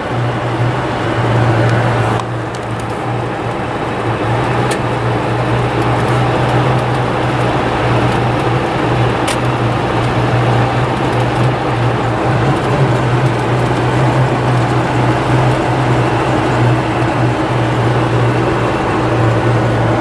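Freshly overhauled Renault 2.5 dCi G9U four-cylinder turbodiesel idling steadily with a constant low hum.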